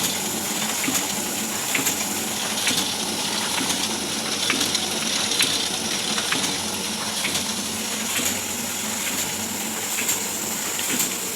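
Oliver 72 sheet-fed offset printing press running steadily: a continuous mechanical hiss and hum with a faint, regular tick about once a second.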